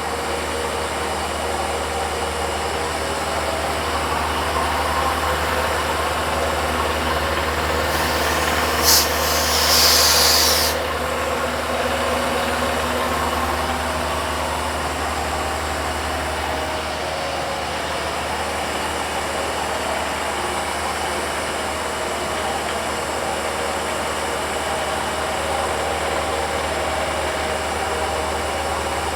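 ProtoTrak CNC mill running steadily as a high-speed steel roughing end mill spirals a bore into an aluminum block, with a brief hiss about eight seconds in.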